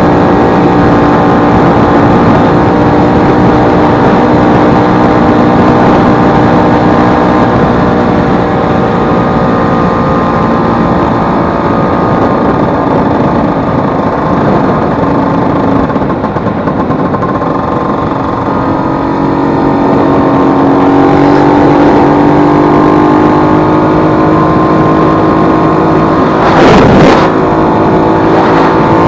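Vespa 150's two-stroke single-cylinder engine running under way, its pitch sagging around the middle and climbing again later as the throttle changes; the freshly repaired engine, with its failed elastic pinion replaced, runs smoothly. A brief loud rush of noise comes near the end.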